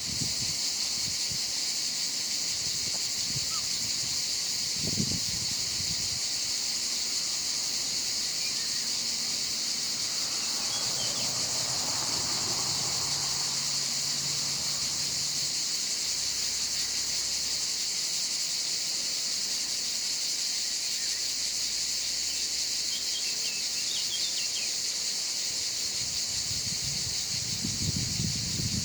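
A steady, high-pitched insect chorus buzzes without a break, with a few low thuds, one about five seconds in and a couple near the end.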